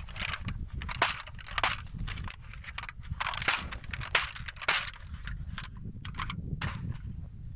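Black plastic seedling plug tray being bent and flexed by hand, crackling in a run of irregular sharp clicks that stop near the end, over a steady low rumble.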